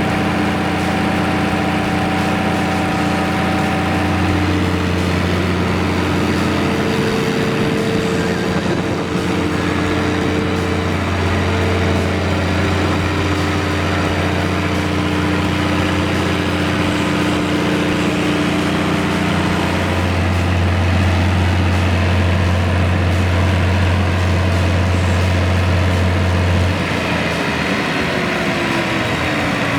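Cummins KTA1150 inline six-cylinder turbocharged diesel engine of a 375 kW generator set running steadily at constant speed. Its deep hum weakens noticeably near the end.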